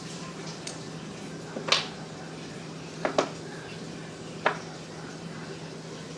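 A few sharp metallic clicks and clinks as parts and tools are handled while an electric drill's gear is being replaced: one, then a quick pair, then one more, over a steady low hum.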